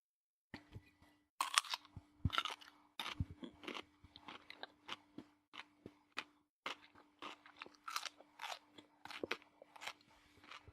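Raw radish bitten and chewed: a loud crisp crunch about a second and a half in, then a steady run of crunchy chews at about two a second.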